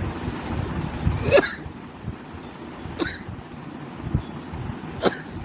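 A person sneezing three times, short sharp sneezes roughly two seconds apart, brought on by tickling the inside of the nose with a stick.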